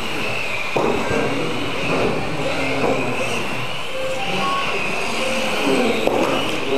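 Electric radio-controlled mini cars racing: a steady high motor whine that wavers up and down with the throttle, with voices chatting underneath.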